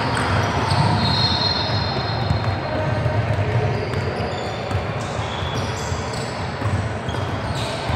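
A basketball being dribbled on a hardwood court floor, with voices in the background.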